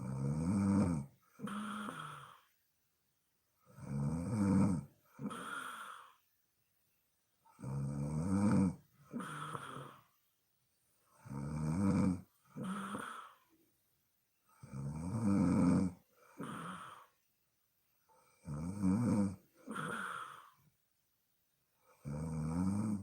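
A sleeping woman snoring in a steady rhythm, each snore lasting about a second with a low, buzzing pitch and followed by a shorter, softer breath, the cycle repeating about every three and a half to four seconds.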